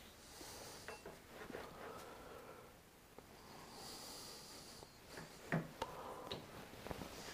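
A metal workpiece being handled and set down on the machine table: soft rubbing and sliding with a few light metal clicks and knocks, the sharpest a little after five seconds in.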